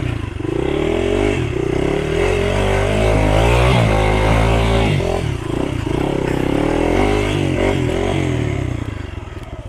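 Motorcycle engine revving under load, its pitch rising and falling again and again as the throttle is worked, then fading away near the end.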